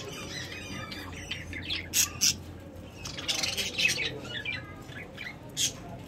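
Budgerigars chattering and squawking, many short high calls overlapping, with louder sharp squawks about two seconds in, a busy cluster a little past the middle, and another near the end.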